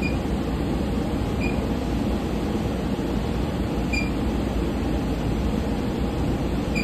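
Steady cabin noise of a SEPTA Regional Rail train car: an even low rumble with a ventilation hum, and a few faint short squeaks.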